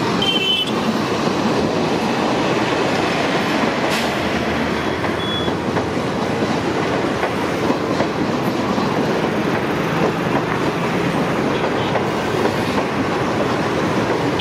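Metre-gauge train hauled by an ALCO YDM 4 diesel locomotive rolling along the track, a steady rumble of wheels and wagons on the rails. Two brief high-pitched tones sound near the start and about five seconds in.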